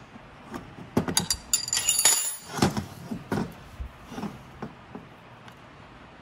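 A steel wrench and steel mounting brackets clinking against the nuts and studs of a brake booster as they are adjusted. A cluster of clinks and short rattles with brief metallic ringing comes from about one to three and a half seconds in, then a few lighter taps.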